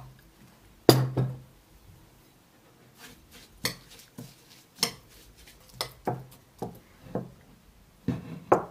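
A glass swing-top storage jar knocking shut about a second in, then a metal fork clinking and scraping against a ceramic plate in a dozen or so irregular strokes as oat flakes are mixed into mashed banana.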